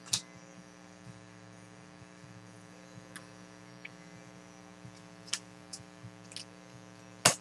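Steady electrical mains hum with scattered light clicks from trading cards being handled, and one sharper click near the end.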